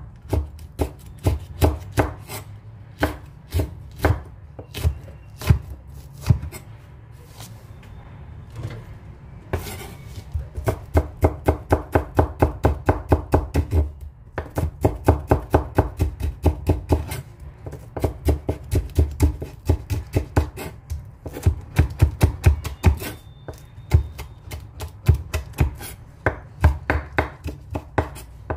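Chef's knife chopping green chili pepper and green onions on a wooden cutting board. The blade strikes the board in scattered chops at first, then in quick runs of about four or five chops a second.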